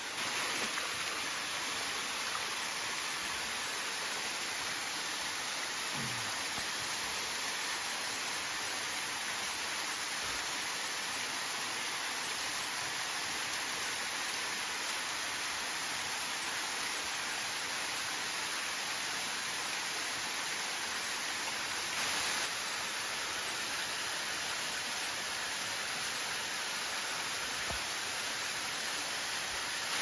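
Steady rushing of a small waterfall and stream water running into a shallow rock pool.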